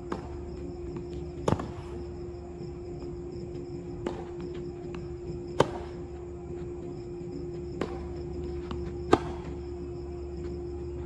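Tennis balls struck by rackets and bouncing on the court: single sharp pops every one to two and a half seconds, the loudest about five and a half and nine seconds in, over a steady hum.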